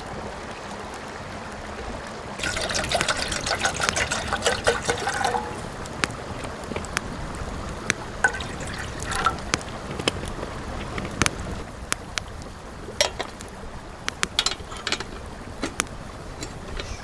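Water poured from a plastic bottle into a metal camping kettle, over a wood fire that crackles with sharp pops throughout.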